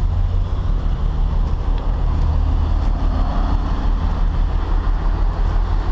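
Heavy truck diesel engine running steadily, a low, even drone.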